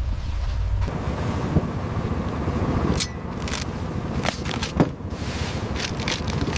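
Steady running of a fishing boat's engine with wind noise, broken by about five sharp knocks and scrapes of crab gear and crabs being handled on deck.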